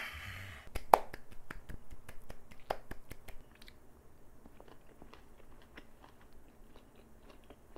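Close-up chewing of a mouthful of egg gimbap (seaweed-wrapped rice roll), with many small wet mouth clicks and smacks, busiest over the first few seconds and fainter after; one sharper click about a second in.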